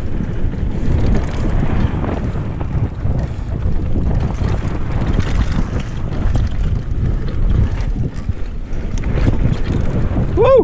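Wind buffeting the action camera's microphone on a fast mountain-bike descent, over the steady rumble and rattle of the bike running on a dirt trail. A short rising-and-falling tone near the end.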